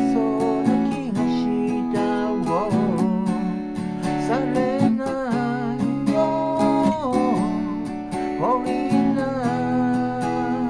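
Acoustic guitar strummed in chords, with a voice singing the melody over it.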